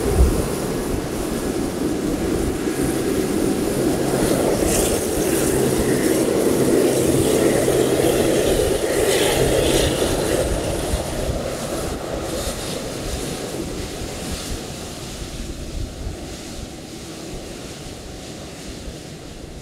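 Boeing 747-8F freighter's GEnx-2B turbofan engines running at low taxi power as the jet rolls past: a steady jet rumble with a faint whine. It swells to its loudest about halfway through and then fades as the aircraft moves away.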